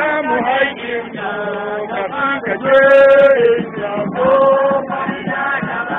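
A crowd of men chanting together in unison, with drawn-out sung notes; the loudest and longest note comes about three seconds in.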